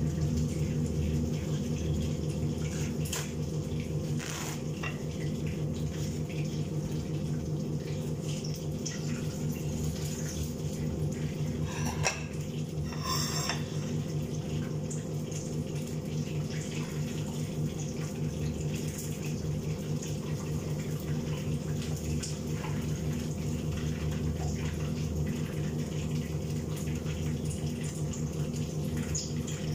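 Steady hum of a kitchen range hood's extractor fan over chicken frying in oil in a pan on a gas stove, with a few clinks of metal tongs and utensils against the pan.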